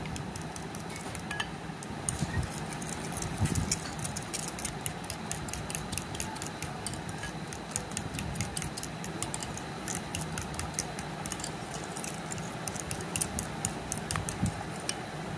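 A metal-tipped beater clicking quickly and irregularly against a glass bowl while egg and milk batter is whisked.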